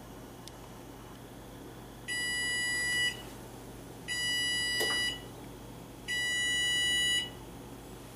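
Kitchen timer beeping: three long, steady electronic beeps about two seconds apart, signalling that the eight-minute baking time is up.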